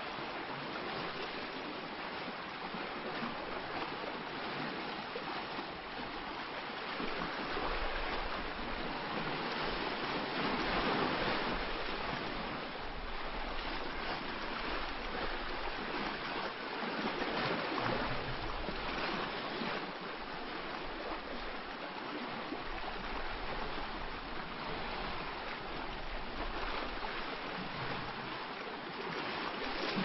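Surf washing on a rocky shore: a steady rushing noise that swells and eases.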